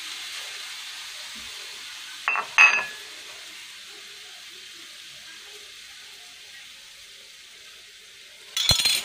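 Diced turkey breast and butter sizzling in a frying pan, a steady hiss that slowly fades. A short clink about two and a half seconds in, and a louder knock near the end.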